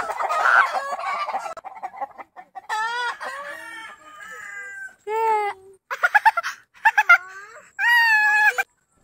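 Chickens squawking and clucking: a burst of scuffling noise in the first two seconds, then a series of loud, drawn-out squawks.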